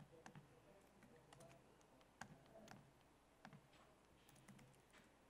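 Faint, irregular clicking of keys on a laptop keyboard: a command being typed in at a terminal.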